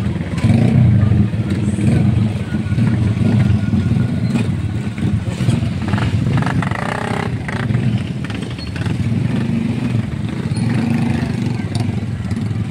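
Several small motorcycle engines running and idling together, with riders pulling away. A low, steady, throbbing engine sound, loudest about a second in.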